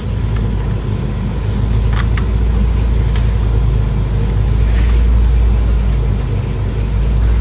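A steady low mechanical hum, with a few faint light clicks about two and three seconds in as a hex key turns the bolts on a handlebar center hook.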